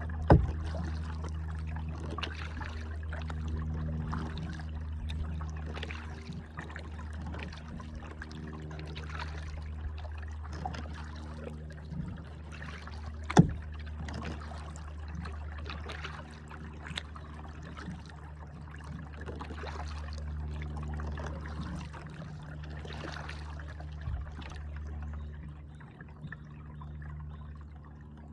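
Kayak paddle strokes splashing and dripping water, over a steady low rumble. There are two sharp knocks, one just after the start and one about halfway through.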